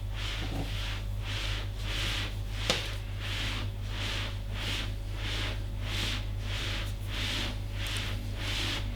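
Hands rubbing rhythmically over the patient's skin in massage strokes, about two strokes a second, over a steady low hum. One sharp click comes about two and a half seconds in.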